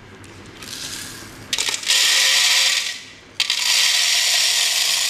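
Whole roasted coffee beans poured from a jar into a coffee grinder's hopper, a dense rattling hiss in two runs of about a second and a half each with a short break between.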